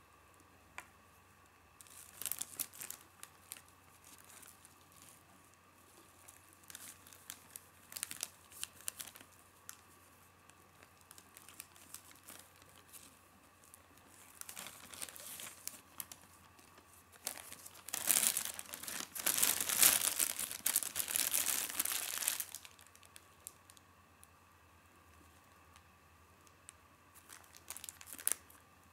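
Clear, stretchy plastic bag crinkling and rustling as it is worked in the fingers, in short irregular bouts. The longest and loudest stretch of crinkling comes a little past the middle.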